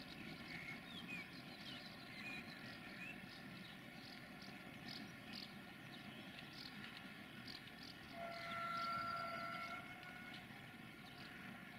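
A distant freight train, hauled by an LDE2100 (060-DA) diesel-electric locomotive, heard faintly as a steady low rumble with small clicks. About eight seconds in, a steady horn blows for about two seconds. A few bird chirps come in the first seconds.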